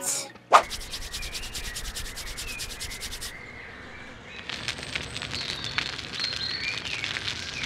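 Wooden stick rubbed fast and evenly against dry kindling, a dry scraping meant to light a fire by friction. It stops about three seconds in, then starts again with birds chirping.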